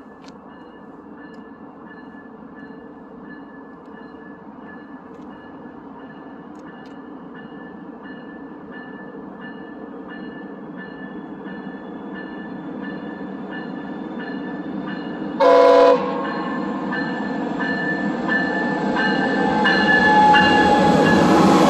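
A Via Rail passenger train approaching, its rumble growing steadily louder until it is close and loud near the end. A steady high ringing runs through it, and there is one short horn blast about two-thirds of the way through.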